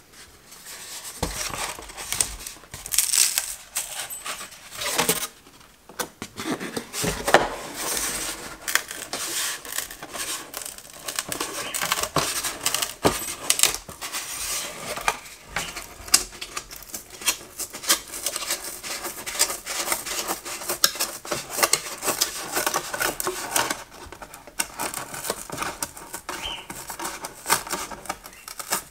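Pre-cut foam board strips being broken free and peeled out of their slots from the paper backing, with the foam sheets handled on a table: a long run of irregular crackles and clicks.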